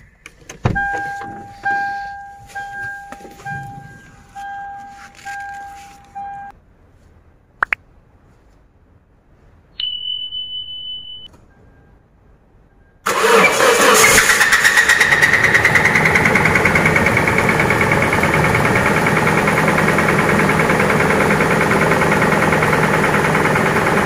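For the first few seconds, a dashboard warning chime dings repeatedly, with a short high beep about ten seconds in. From about thirteen seconds in, a Toyota Prado's 2TR-FE 2.7-litre four-cylinder engine runs loudly with a rapid, even knocking, the very bad knock that the owner is trying to diagnose.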